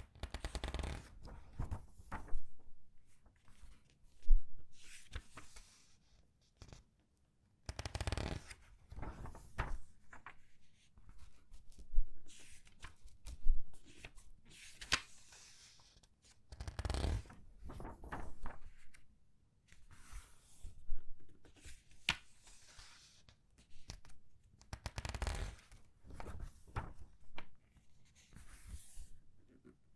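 Comic book pages being turned one at a time and squeezed, making crinkling paper rustles and crisp crackles with short quiet gaps. A fuller rustle comes every eight seconds or so, as each page is turned.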